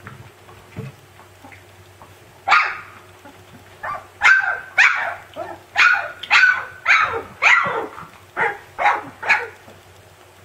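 Siberian husky puppy barking: a string of about a dozen short, high barks, each falling in pitch. The first comes alone about two and a half seconds in, and the rest follow at roughly two a second.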